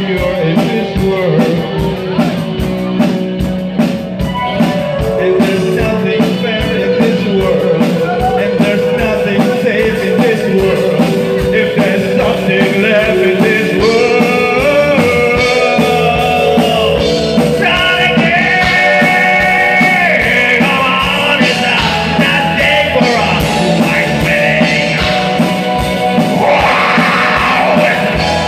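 Live new wave rock band playing: a male singer over electric guitar, bass guitar, keyboards and drums with a steady beat.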